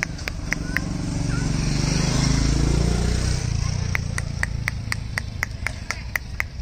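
A motorbike passing by, its engine growing louder to a peak about two seconds in and then fading away. A steady run of short high chirps, about four a second, sounds at the start and again through the second half.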